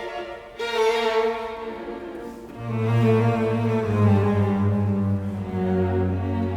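Background music played on bowed string instruments: slow sustained melody notes, with a low cello-like note coming in under them about two and a half seconds in.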